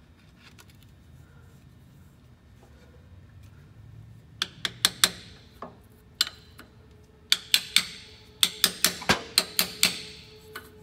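Ball-peen hammer tapping on an old wheel bearing race used as a seal driver, seating a new input seal into a truck's power divider housing. Sharp metallic taps come in a short cluster about four seconds in, then a quicker run at about four a second over the last few seconds.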